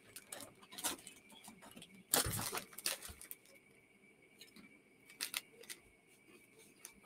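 A crisp (potato chip) packet crinkling as it is handled, and crisps being crunched in the mouth. These come as scattered short crackles, the longest cluster about two seconds in.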